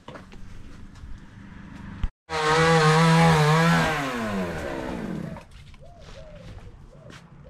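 A small engine running loud at a steady pitch, then falling in pitch as it slows, for about three seconds, starting suddenly a couple of seconds in. Faint short chirps follow.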